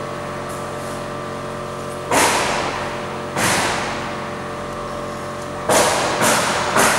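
Steady machine hum with several held tones from a powered-up X-ray baggage scanner. A soft bag is set down on the scanner's entry roller table with a thud about two seconds in, and again about three and a half seconds in, each noise dying away over about a second. Near the end a run of sharp, noisy knocks starts, about two a second.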